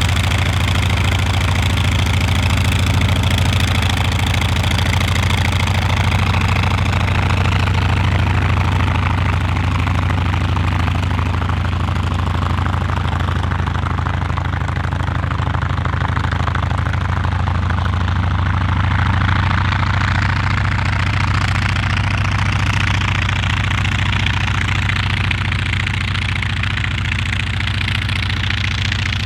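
North American T-28 Trojan's radial piston engine running steadily at low power, a deep even throb with a rushing propeller hiss over it.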